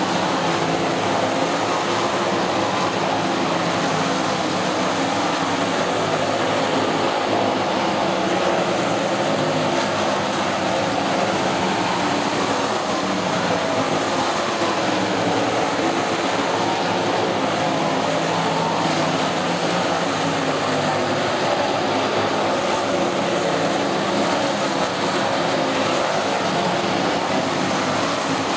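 A field of winged sprint cars racing together, their 410-cubic-inch V8 engines running hard in an unbroken, overlapping din.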